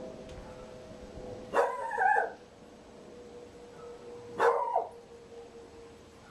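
A dog barking in the background, twice, each bark a drawn-out call of about half a second.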